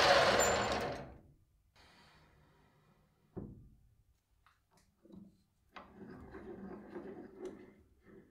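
A metal lathe's turning noise dies away within the first second. After a few light metallic knocks, a hand-turned threading die scrapes as it starts cutting a thread onto a small metal pin, for about two seconds near the end.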